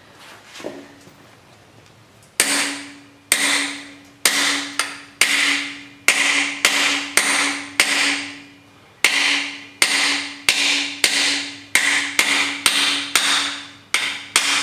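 A hammer striking a socket held as a driver against a brass freeze plug in a Chrysler 440 cast-iron engine block, driving the plug into its bore. After a quiet start, about two dozen sharp metal blows come at about two a second, each ringing briefly, with a short break about nine seconds in.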